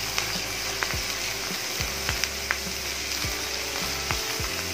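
Onions and ginger-garlic paste frying in hot ghee in a pan, sizzling steadily as they are stirred. The utensil clicks now and then against the pan.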